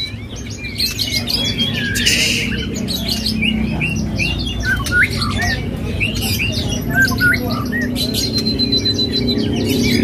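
White-rumped shama (murai batu) singing a rapid, varied song of short whistles and chirps, over a low steady background hum. A steady high tone joins in near the end.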